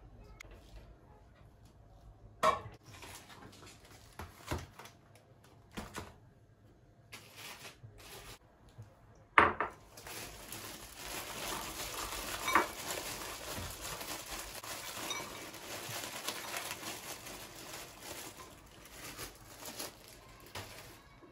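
Kitchen dishes and utensils: a few separate knocks, then a sharp clack about nine seconds in, followed by about ten seconds of a steady hiss with small clinks in it.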